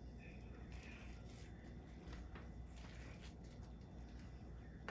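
Faint soft rustling and light handling noises from stuffed cabbage leaves being pressed and arranged by hand, over a steady low hum.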